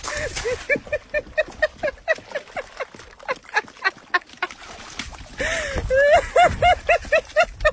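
A dog yipping and whining excitedly in quick, short, high-pitched cries, about three a second, each rising and falling in pitch. A brief rush of noise breaks in about five and a half seconds in.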